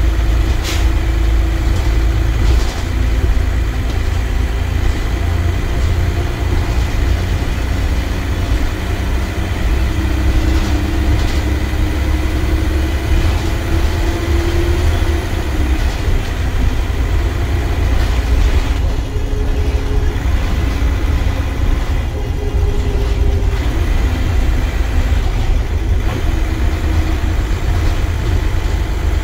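Dennis Trident ALX400 double-decker bus under way, heard from the upper deck: a steady low engine and road rumble, with a whine that climbs for a few seconds about halfway through and then drops away. A few short sharp clicks or rattles cut in, one just after the start.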